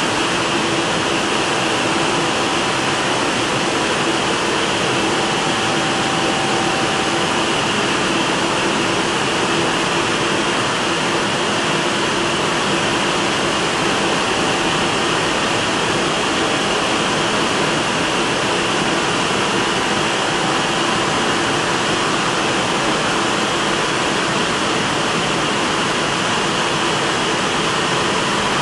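WashTec rollover car wash gantry running over a car: a steady rush of spraying water and brushes with a faint motor hum beneath.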